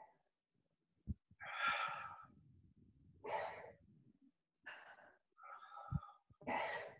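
A man breathing out heavily in about five short breaths and sighs, the effort of pressing his shoulder blade onto a mobility ball. There are two soft low thumps, one about a second in and one near the end.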